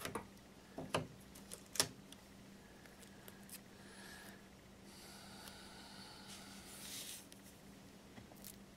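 Faint handling sounds from work at a bench: a few sharp clicks and taps in the first two seconds, then a soft rasping rustle a few seconds later, over a low steady hum.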